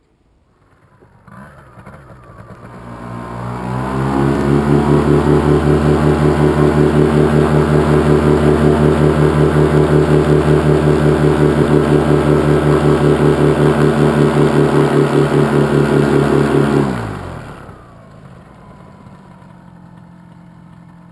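Top 80 two-stroke paramotor engine and propeller on a ground run-up: the engine revs up over about three seconds, is held steady at high power for about twelve seconds, then is throttled back quickly to a quiet idle near the end.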